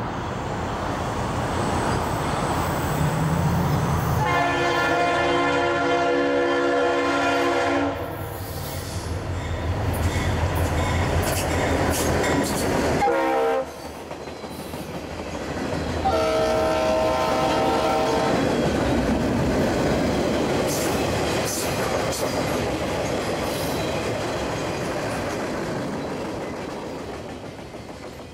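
An EMD SD40-2 diesel locomotive, with its two-stroke V16 engine, leads a freight train past. Its multi-chime air horn sounds two long blasts, about 4 s in and again about 16 s in, over the engine's rumble. Loaded flatcars then roll by with wheels clicking over the rail joints, and the sound fades out near the end.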